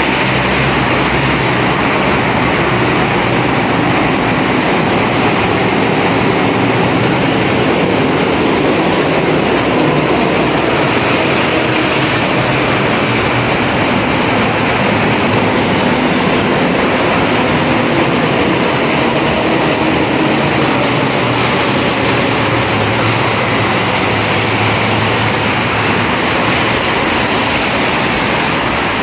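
Steady, loud rush of rain and road traffic on a wet city street, with no break or change.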